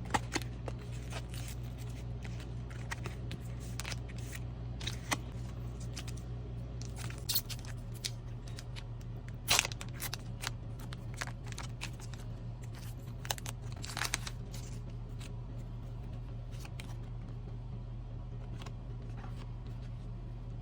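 Pokémon booster pack's foil wrapper being torn open and crinkled, with cards handled: scattered sharp crinkles and clicks over a steady low hum.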